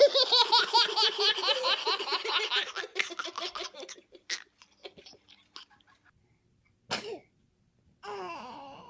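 A sneeze at the very start, then high-pitched laughter in a rapid run of ha-ha pulses that fades away over about four seconds. A short sound follows about seven seconds in.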